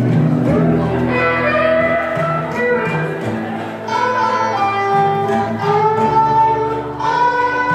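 Latin dance music playing, a melody over sustained low notes.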